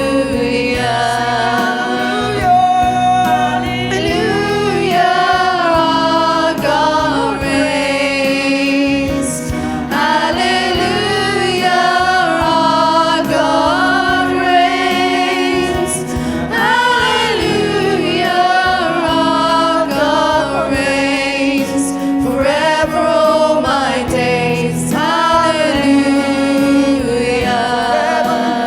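Worship song: many voices singing together with instrumental accompaniment.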